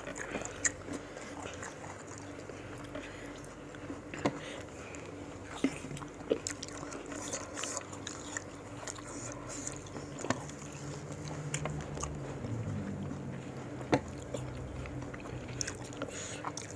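Close-up eating sounds: biting into and chewing pieces of raw fruit dipped in a thick peanut-chili rujak sambal, with a few sharp clicks scattered through.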